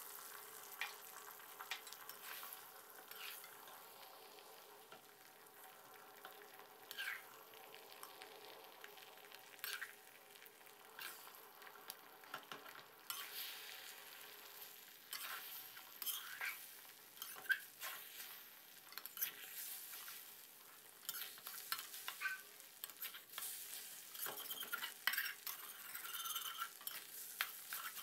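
Beaten eggs sizzling faintly in hot oil in a metal wok, with a metal spatula scraping and tapping against the pan as they are stir-fried into dry scrambled egg. The scraping grows busier over the second half.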